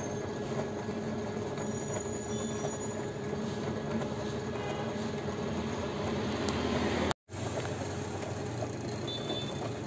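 Paint tinting machine running: a steady motor hum with a few constant tones. It cuts out for a moment about seven seconds in.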